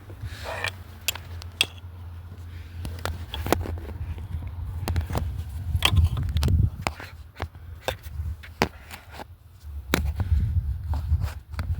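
Scattered metallic clicks, knocks and scrapes of hand tools and parts being handled while a new oxygen sensor is fitted, over a low steady rumble.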